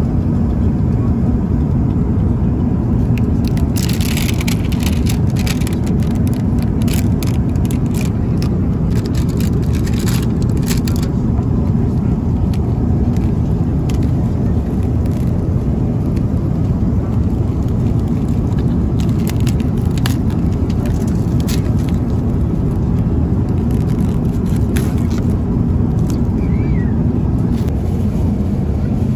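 Steady rushing cabin noise of an Airbus A350-900 in cruise, from the engines and airflow, heavy in the low end. Scattered light clicks and rattles of the meal tray and its packaging being handled come through at about four to eleven seconds and again around twenty seconds.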